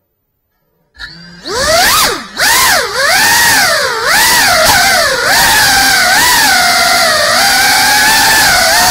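GEPRC CineLog35 cinewhoop's brushless motors and ducted propellers start up about a second in. Their whine sweeps up and down several times with the throttle as the drone lifts off, then settles into a steady high whine over a rushing hiss.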